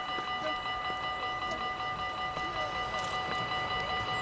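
NS Sprinter electric train approaching: a steady low rumble with a high whine of several even tones held flat throughout.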